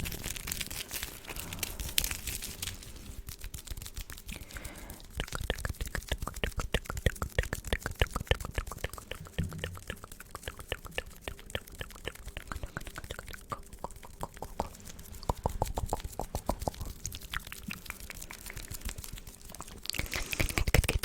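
Close-miked ASMR mouth sounds: wet clicks and smacks of lips and tongue, coming in quick runs with short pauses between.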